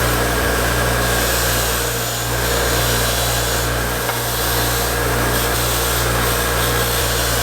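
A motor-driven machine running steadily, a low hum under an even rushing, grinding hiss.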